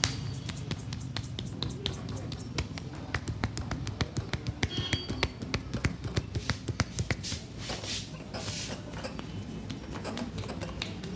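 Hands tapping and slapping on a person's head and body in a rapid percussive massage, several strikes a second, densest in the middle. A short bird chirp sounds about five seconds in.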